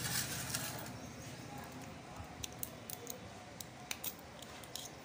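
Scattered small metallic clicks and taps as a Bajaj BS3 diesel fuel injection pump is handled and taken apart by hand, with handling noise in the first second.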